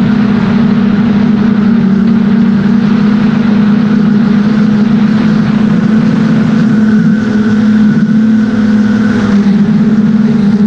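DJI Mavic 2 Pro's propellers and motors droning steadily in flight, heard close up with a rushing airflow noise, as from a GoPro mounted on the drone.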